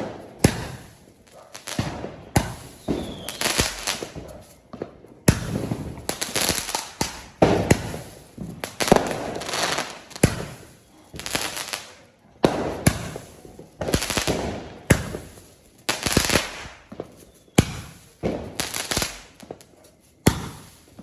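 Multi-shot fireworks cake firing its shots one after another, about one a second; each is a sharp bang followed by a fading hiss.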